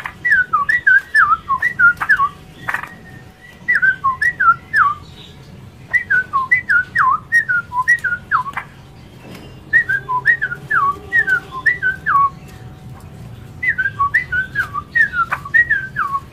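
Straw-headed bulbul (cucak rawa) singing: about six bursts of quick, liquid, downward-sliding whistled notes, each burst one to two seconds long, with short pauses between.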